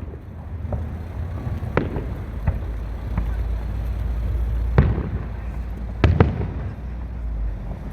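Fireworks shells bursting: a series of sharp bangs at irregular intervals, the loudest about five and six seconds in, the last two close together, over a steady low rumble.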